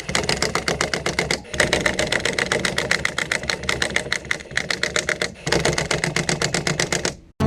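Impact wrench hammering as it runs wheel lug bolts in, in three runs of about two to four seconds with short breaks between them.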